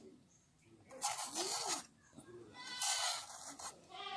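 Serrated hand peeler scraping the skin off a bottle gourd in two long strokes, one about a second in and one about three seconds in, each lasting just under a second.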